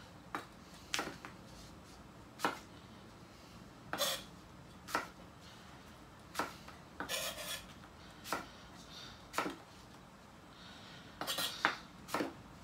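Kitchen knife slicing an apple on a wooden chopping board: irregular knocks of the blade against the board, a dozen or so with uneven gaps, some close together, with light scraping between them.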